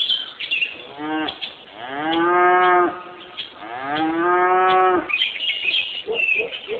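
A cow mooing: a short call, then two long calls that rise and then hold steady. Birds chirp around the calls.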